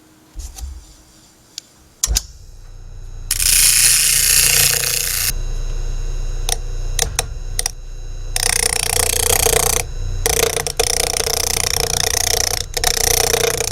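Homemade lathe's electric motor switched on about two seconds in and running with a steady low hum, while a chisel cuts the spinning poplar block in two long noisy spells, with clicks and knocks between.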